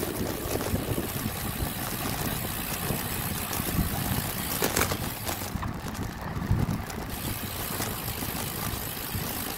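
Steady rush of wind over the microphone and road noise from a moving road bike.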